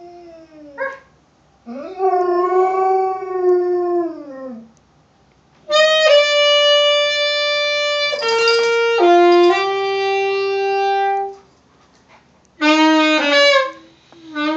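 A dog howling in long calls that rise and fall in pitch, alternating with a saxophone playing long held notes that step down in pitch; near the end the dog howls along with the saxophone.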